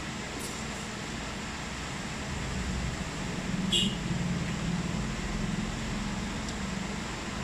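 A steady fan-like hiss and hum under soft close-up eating sounds as rice, dried fish and fried egg are eaten by hand. One short sharp click comes about halfway through.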